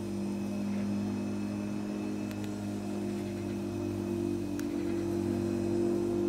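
A motor engine running at a steady speed, a constant low hum that does not rise or fall.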